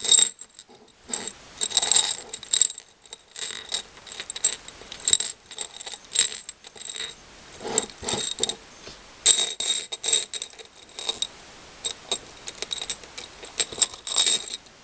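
Small craft beads clicking and rattling against each other and their containers as they are picked through by hand, in irregular runs of light clicks.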